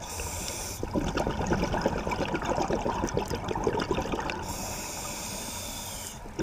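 Scuba diver breathing through a regulator underwater: a short hiss of inhaled air, then a long stream of exhaled bubbles gurgling away. Another hiss comes in the second half, and a new burst of bubbles starts at the very end.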